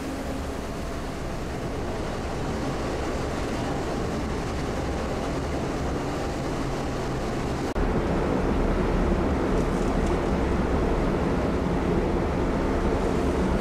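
Steady drone of a car ferry's engines under a wash of wind and sea noise. About eight seconds in it cuts to a louder stretch with more low rumble.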